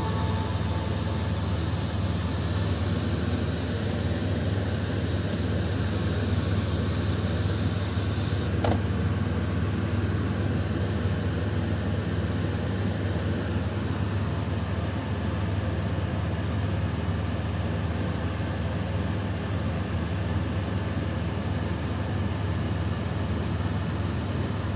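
A steady low machine hum with a constant hiss over it, like a fan or air-conditioning unit running. The highest part of the hiss cuts out suddenly about eight and a half seconds in, and the hum carries on unchanged.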